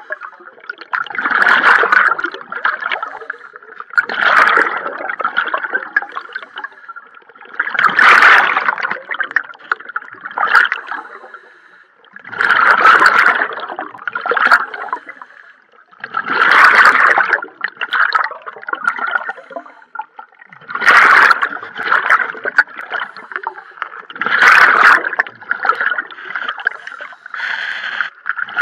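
Scuba diver breathing underwater through a regulator, heard from close by: a burst of gurgling exhaled bubbles about every four seconds, with quieter hiss between breaths.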